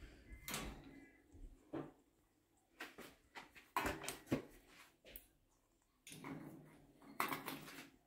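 A stainless steel food bowl knocking and rattling against a wire birdcage as it is handled, in a string of short, irregular knocks.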